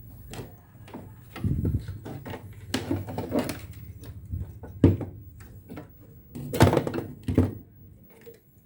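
Irregular knocks, clicks and scrapes of hard objects being handled and set down on a workbench, with a few louder knocks, as a television is worked on.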